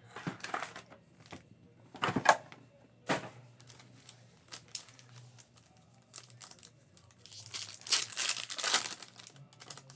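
Plastic wrapping on a box of trading cards being crinkled and torn open. There are sharp rips about two and three seconds in, and a longer crinkling stretch near the end.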